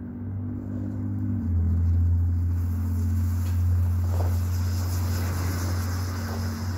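A homemade smoke device burning and venting smoke, its hiss growing from about two and a half seconds in as the mix flares into open flame near the end of its burn, with a few faint crackles. Under it runs a steady low mechanical hum that gets louder about a second and a half in.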